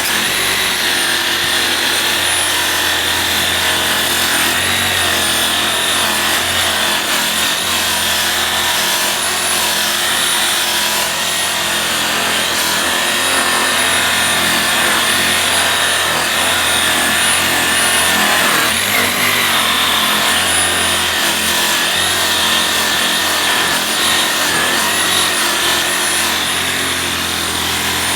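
Chicago Electric variable-speed buffer running steadily with a high whine, its buffing pad rubbing on an aluminum wheel under light pressure. The whine briefly rises in pitch about two-thirds of the way through.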